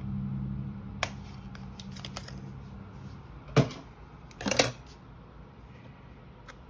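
Hands handling and separating a bundle of socks: a few light clicks, then a louder sharp tap about three and a half seconds in and a short quick run of taps about a second later.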